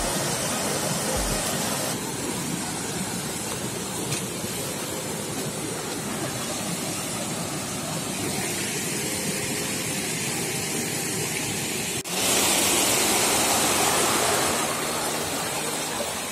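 Small river waterfall and rapids rushing steadily. About twelve seconds in the rush turns abruptly louder and hissier, easing back after a couple of seconds.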